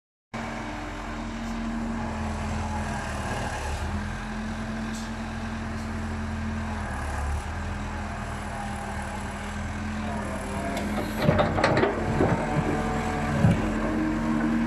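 Diesel engine of a 1974 Lännen UM 1680M wheeled excavator running steadily as the bucket digs. A cluster of loud metal clanks and knocks from the bucket and boom comes about eleven seconds in.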